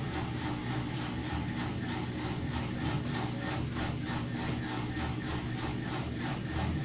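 Mabe 18 kg top-load washing machine in its spin cycle, running with a low hum and a rhythmic rubbing, scraping noise repeating several times a second: the noise the machine makes when spinning.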